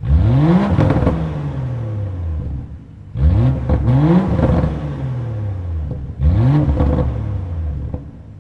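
2017 BMW X4 M40i's turbocharged 3.0-litre inline-six revved three times through its exhaust, the middle one a quick double blip. Each time the revs climb fast and then fall back slowly, settling to idle near the end.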